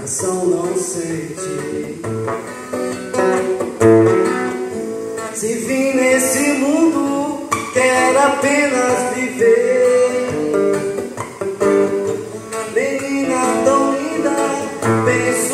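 Acoustic guitar strummed in chords with a man singing into a microphone, played through a loudspeaker.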